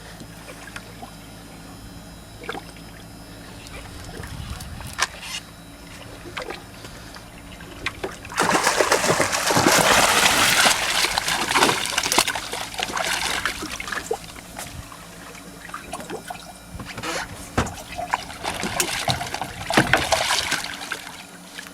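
Hooked yellowfin tuna splashing and thrashing in the water at the boat as it is brought in. The splashing starts about eight seconds in, heaviest for about four seconds, then comes again in shorter bursts.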